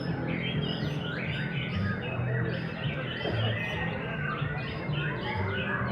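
Many caged white-rumped shamas (murai batu) singing at once in a contest: a dense, overlapping mix of whistles, chirps and rapid trills.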